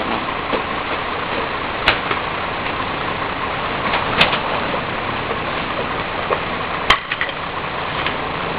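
Heil 5000 rear-loader recycling truck's diesel engine idling steadily, with three sharp knocks about two, four and seven seconds in, the last the loudest, as recyclables are loaded into the rear hopper.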